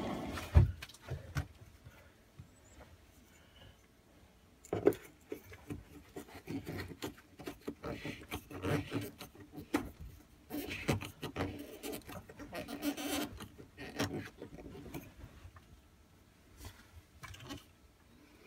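Scattered clicks, taps and scrapes of hands working a stainless steel heater flue fitting into its hole in a boat's cabin ceiling, where it is too tight a fit. The handling is busiest in the middle, after a single knock near the start.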